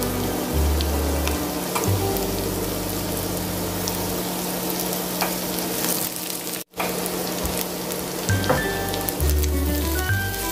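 Oil sizzling in a frying pan as clumps of battered julienned burdock root and enoki mushroom fry, over background music. The sound cuts out for an instant about two-thirds of the way through.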